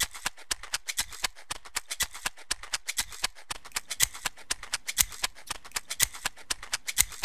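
Light percussion music: a fast, even run of dry clicks and taps, several a second, with no melody.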